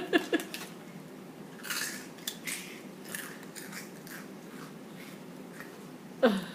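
Crisp snack (Bissli) being bitten and crunched in short scattered clicks and crackles as it is eaten. Near the end a short vocal sound falls in pitch.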